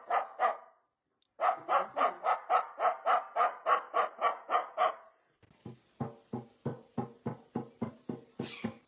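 A dog barking rapidly, about four barks a second, in three runs broken by short pauses. The last run is lower-pitched.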